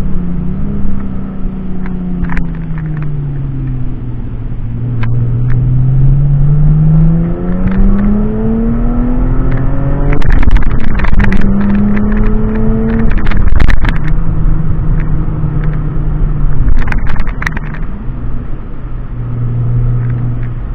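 Lexus IS300's 2JZ inline-six engine and exhaust heard from inside the cabin while driving. The engine note falls at first, then climbs steadily under acceleration for several seconds, then drops in steps at gear changes about ten, thirteen and seventeen seconds in. Sharp pops come around the gear changes.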